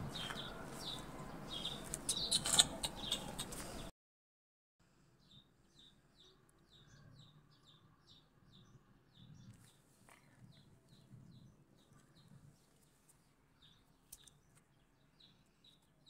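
Small birds chirping: a steady run of short, high chirps about two a second. The chirps are faint, with some scraping and clicking in the first few seconds, and the sound drops much quieter about four seconds in.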